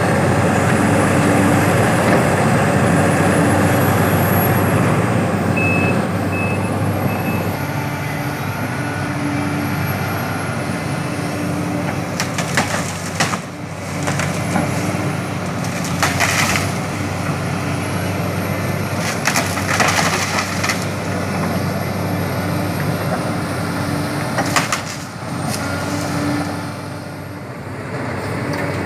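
Sumitomo SH350 excavator's diesel engine running steadily, with several short hisses partway through.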